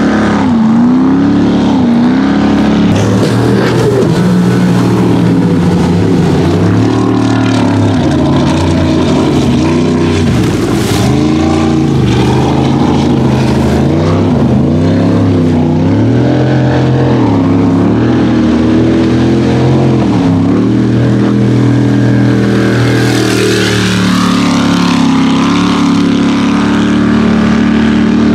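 Racing powerboat engine running at high revs, its note swinging up and down every second or two, with the hiss of water and spray.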